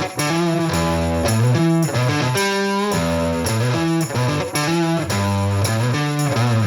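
Background music with electric guitar and a steady beat.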